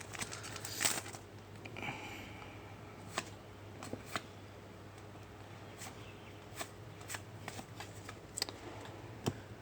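Trading cards handled and flipped through one by one: quiet sliding of card stock with scattered short clicks.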